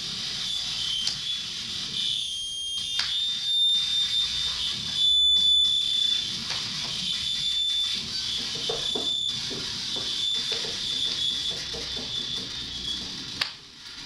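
Noise-music electronics played through a PA speaker: a high, wavering squeal over a low rumble. A sharp crack comes near the end.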